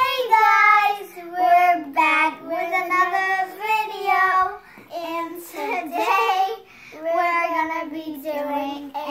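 Two young girls singing together without accompaniment, in held notes with short breaks between phrases.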